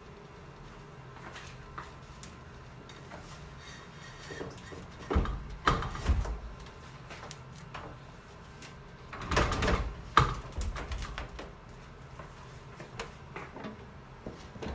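Two clusters of thumps and clunks, about five seconds in and again about nine and a half seconds in, with a few lighter clicks between.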